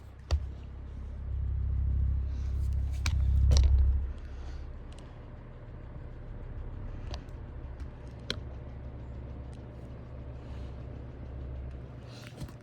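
Lasko 18-inch oscillating table fan running on its low setting, with a steady low hum and rumble. The rumble is loudest for the first few seconds, then settles, with a few light clicks scattered through.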